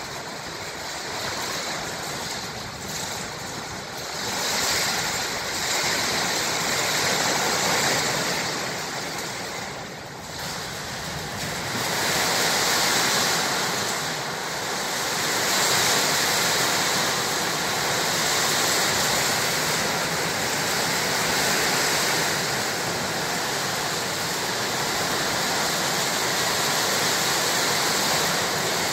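Heavy rain pouring down, a dense steady hiss that swells and eases, growing heavier after about ten seconds.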